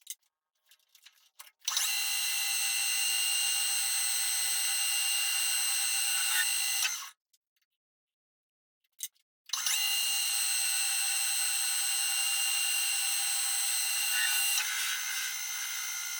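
Metal lathe running, a steady whine made of several fixed tones, in two runs of about five and seven seconds separated by a short gap. A few light clicks come before each run.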